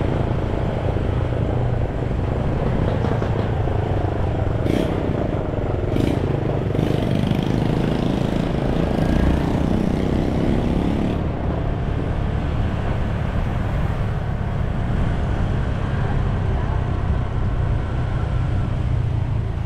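Steady engine and road noise of a moving motor vehicle, with a low hum throughout and a couple of sharp knocks around five and six seconds in.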